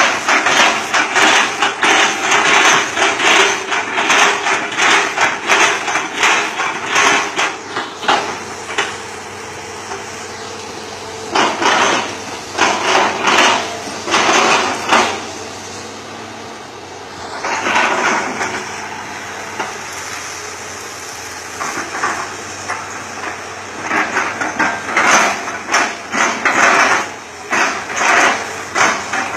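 Hitachi Zaxis 200-5G excavator running hard while its bucket strikes again and again, chopping up a felled oil palm trunk: runs of rapid knocks, broken by a few pauses where only the engine's steady drone is left.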